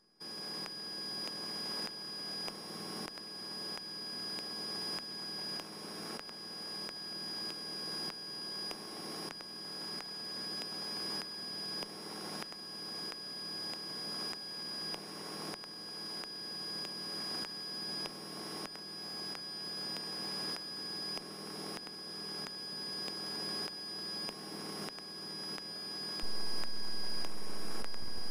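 Steady drone of a Cessna 172's engine and propeller in cruise, heard in the cabin through the intercom and headset audio, with a constant high electrical whine on top. It gets louder about 26 seconds in.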